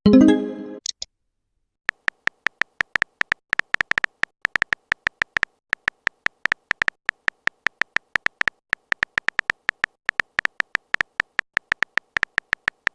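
Texting-app sound effects: a short pitched message tone at the start, then rapid virtual-keyboard typing clicks, about four to five a second.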